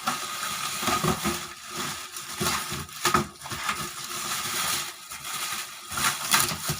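Packaging of a new table fan being handled and unwrapped: irregular crinkling and crunching of plastic and cardboard, with a few sharp knocks.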